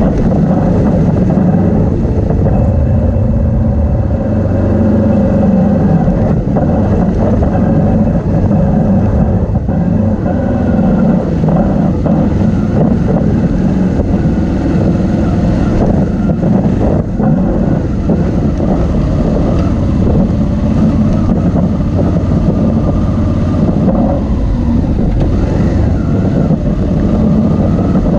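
Motorcycle engine running under way close to the microphone, its revs rising and falling as the bike rides along a dirt track.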